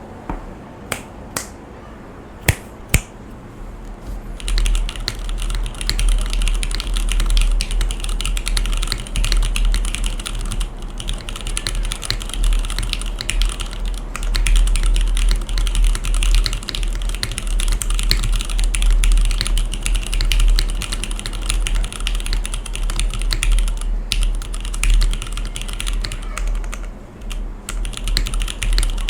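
Mechanical keyboard in an aluminium Bisoromi RS60 case with stock Cherry MX Black linear switches, a carbon fibre plate and GMK Deku keycaps. A few separate keystrokes are followed by continuous fast typing from about four seconds in.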